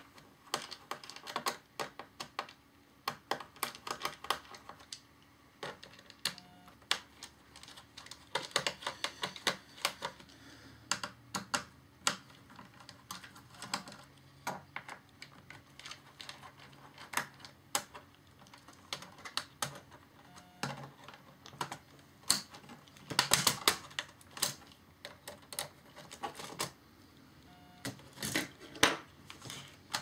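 Phillips screwdriver clicking and scraping in the screws of a Dell laptop's plastic underside access panel, then the plastic panel being worked loose and lifted off. Irregular small clicks and taps come in quick runs, with a dense, louder run of clicks about two-thirds of the way through.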